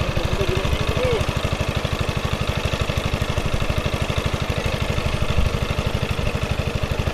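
Pump engine running steadily with a fast, even chugging as it pumps water out of a pond to drain it.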